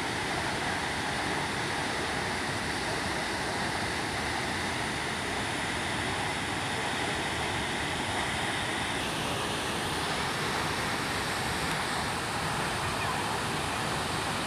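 Steady rush of a large waterfall, water falling onto rocks in an even, unbroken noise.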